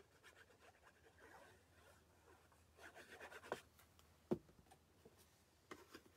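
Faint scratchy rubbing of a multipurpose liquid glue bottle's tip across patterned cardstock paper, with soft paper handling. About four seconds in comes a single light tap, as of the glue bottle set down on the table.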